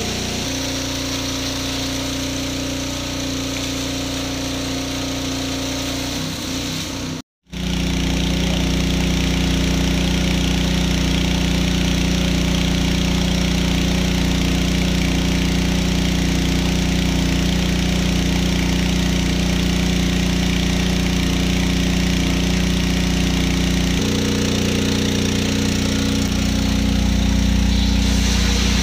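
Honda GX160 single-cylinder four-stroke petrol engine running steadily under load, driving a WB30X water pump, with water rushing out of the discharge hose. The sound cuts out for a moment about seven seconds in, then comes back with the engine running at a slightly different steady pitch.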